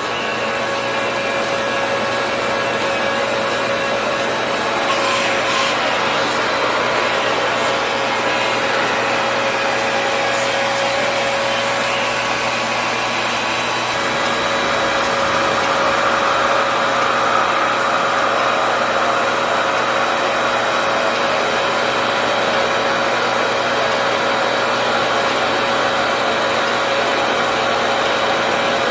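RevAir reverse-air hair dryer running steadily, its suction wand drawing a section of hair through a rush of air, with a steady whine from its motor.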